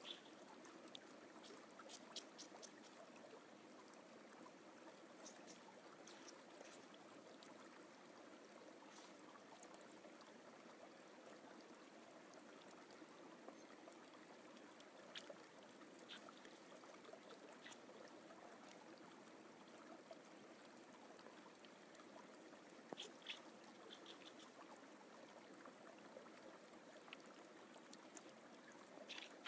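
Faint, steady rush of a forest stream, with a few light scattered ticks over it.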